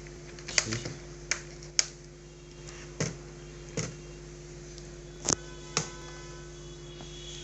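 Scattered sharp clicks and taps from handling a laptop and pressing its keys and buttons, about seven in all, over a steady low hum.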